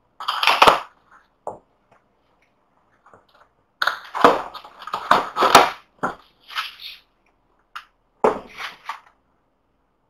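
Corrugated cardboard boxes being handled: scraping, sliding and knocking of cardboard in several bursts with sharp knocks, the longest cluster about four seconds in.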